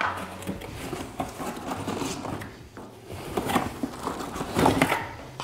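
Cardboard rustling and scraping with scattered knocks as hands dig into a small inner carton and lift out a plastic gas-lift piston cover, louder handling a few times near the end. A low steady drone from a lawn mower runs underneath.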